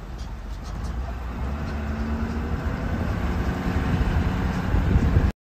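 Pickup truck driving slowly on a rough dirt road, heard from inside the cab: a steady low rumble of engine and tyres that grows a little louder, then cuts off suddenly near the end.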